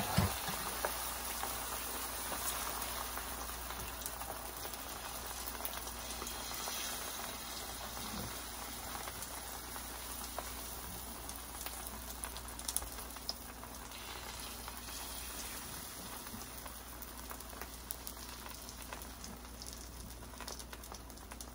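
Beaten eggs frying in a little oil in a hot pan: a steady sizzle with scattered small pops, slowly fading. A brief knock right at the start.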